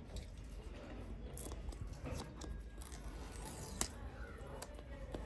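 Paper tear-strip pulled along the seal of a cardboard box, with soft tearing, rustling and scraping and a sharp click about four seconds in.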